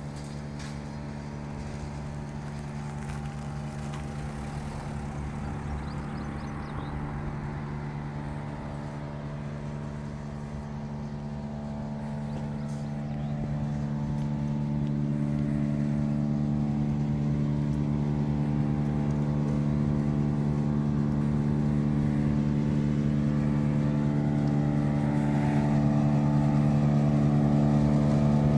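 A vehicle engine idling, a steady unchanging hum that grows gradually louder through the second half.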